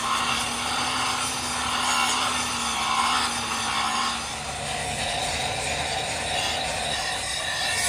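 Handheld angle grinder's abrasive disc grinding the welded teeth of a steel helical gear pinion shaft, a steady gritty grinding with the motor's hum under it, easing a little in loudness about halfway through.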